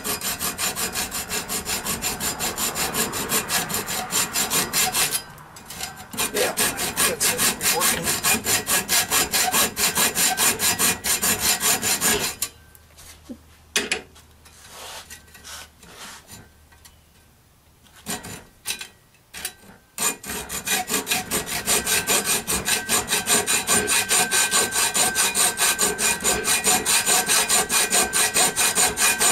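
Hacksaw cutting steel held in a bench vise, in quick, even back-and-forth strokes. The sawing breaks off briefly about five seconds in, stops for several seconds around the middle with only a few light knocks, then starts again.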